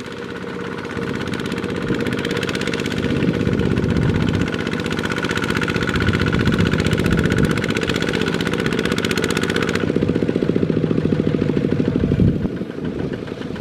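Single-cylinder Kubota diesel of a two-wheel walking tractor running hard under load with a fast, even chugging, pulling a loaded trailer through mud. A thin high whine rides on it until it stops suddenly about ten seconds in, and the engine gets quieter near the end.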